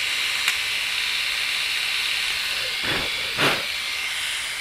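Flawless Legs battery-powered electric shaver running with a steady high whirring hiss. A short click about half a second in and two short knocks around three seconds in come from handling the shaver.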